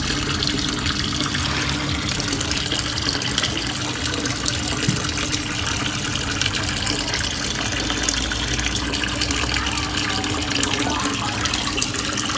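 Water falling steadily into a turtle tub, a constant running and splashing from the tank's inflow churning the surface.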